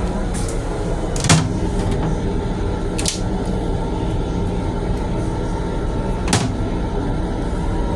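Steady hum and rumble of an M7 electric railcar, heard from inside its restroom, with a few sharp plastic clacks from the toilet seat being handled and pushed up against the lid. The loudest clack comes about a second in, and others come near three and six seconds.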